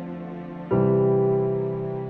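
Background music with held chords; a new chord comes in just under a second in and slowly fades.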